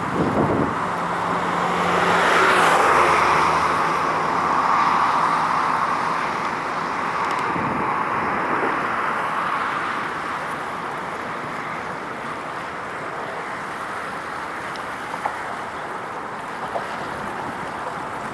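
Road traffic: a vehicle passing, swelling to its loudest about three seconds in and fading away over the following seconds, over a steady background of wind and distant traffic.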